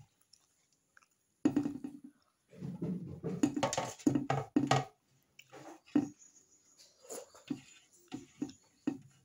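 Close-miked chewing of a mouthful of rice and chickpea curry eaten by hand, in irregular bursts. The chewing is busiest in the first half and thins out to scattered soft clicks.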